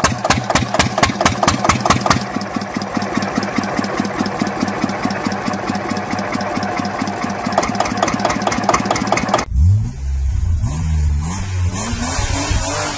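Small 8 HP diesel engine running just after a compression-release start, a steady rapid knock of its firing strokes. About nine and a half seconds in, it cuts off suddenly to a different engine whose pitch rises.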